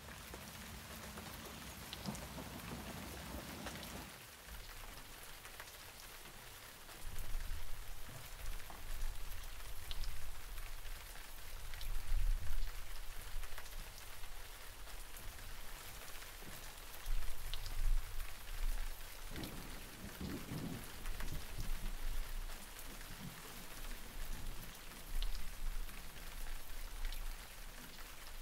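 Rain falling steadily: an even hiss with scattered ticks of single drops, and low rumbling swells that come and go every few seconds.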